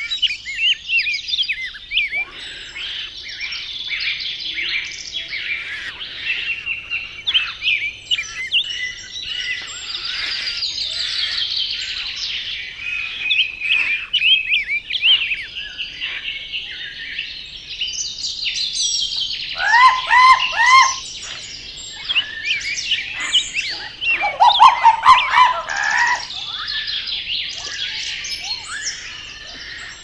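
A chorus of birds chirping and singing throughout, many quick high notes overlapping. A louder, lower series of repeated calls comes in about twenty seconds in and again around twenty-five seconds.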